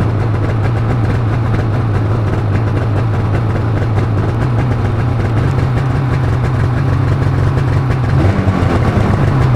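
A 2022 Polaris Matryx RMK Pro snowmobile's two-stroke engine idling steadily on a cold start.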